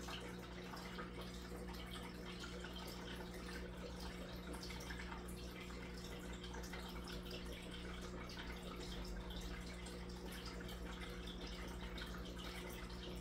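Aquarium filter's water outflow steadily trickling and splashing onto the tank's surface, with a low steady hum underneath.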